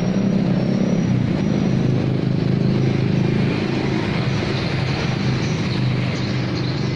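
A motor vehicle engine running steadily close by, with road traffic around it.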